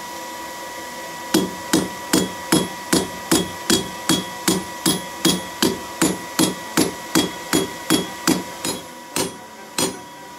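Hand hammer striking a red-hot 5 mm steel bar on an anvil, forging a wing shape: a steady run of blows about two and a half a second, starting about a second in, then two slower strikes near the end.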